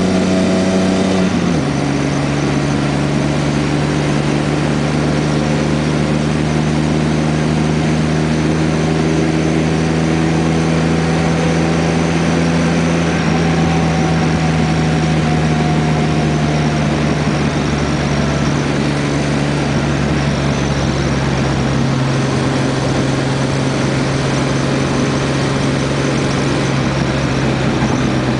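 A 1981 Ford Falcon on the move, heard from inside: a steady droning hum over road noise, its pitch stepping down about a second in and then sinking slowly. It is the noise the owner suspects is a worn wheel bearing or a worn U-joint.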